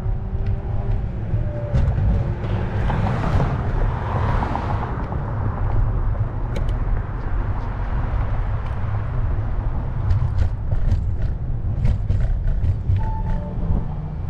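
Wind buffeting a handlebar-mounted camera on a moving electric scooter, a heavy steady low rumble, with a swell of road noise about three to five seconds in and a run of sharp clicks in the last few seconds.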